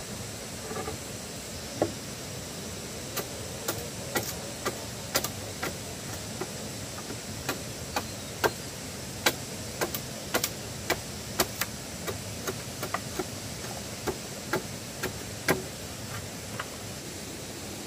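Irregular, sharp knocks of a blade chopping at the edge of a wooden plank, roughly one every half second to second, over a steady hiss.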